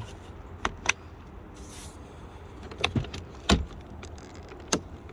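Plastic car door trim being handled and pried at: a handful of sharp clicks and knocks, the loudest about three and a half seconds in, over a steady low rumble.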